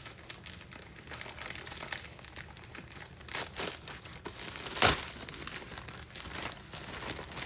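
Packaging crinkling and rustling as items are unpacked and handled, in scattered short crackles, with one louder sharp crackle about five seconds in.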